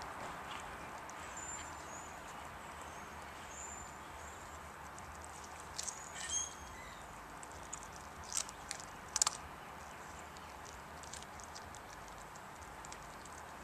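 A greyhound chewing raw chicken, with several sharp crunches and wet clicks of the jaws bunched around the middle over a steady background hiss.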